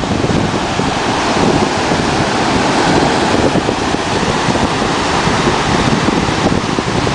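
Sea surf breaking and washing around the shallows, a steady loud rush, with wind buffeting the microphone.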